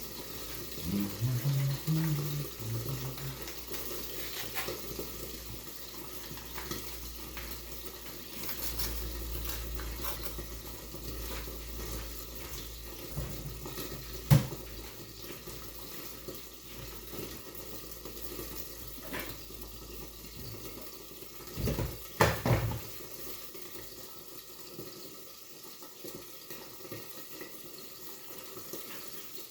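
Washing up at a kitchen sink: tap water running, with dishes and cutlery clinking and a few knocks, the sharpest about fourteen seconds in.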